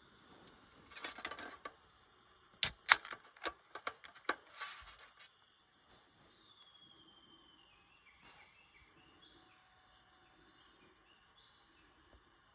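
An aluminium can of Suntory Kinmugi being opened: a cluster of sharp metallic clicks as the pull tab is cracked, with short bursts of hissing before and after as the carbonated drink vents. Faint bird chirps follow.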